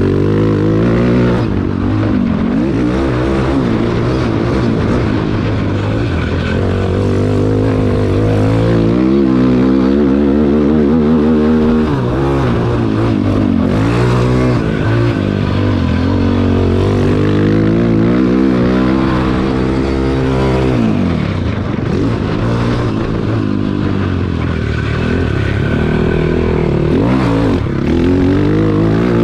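Cannondale ATV's single-cylinder four-stroke engine being ridden hard on a dirt track, its pitch rising and falling again and again as the throttle opens and closes through gear changes and corners. It drops to a low note twice, about a third and two-thirds of the way through, before revving up again.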